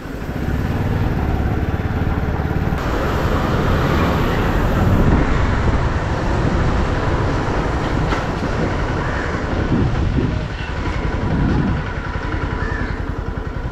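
Motorcycle engine running steadily while the bike is ridden along, with wind noise on the microphone.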